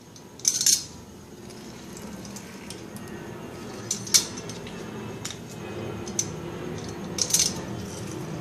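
Kitchen utensils tapping and clinking against a mixer jar as ingredients are added: a handful of short separate clicks, spread out over a low steady hum.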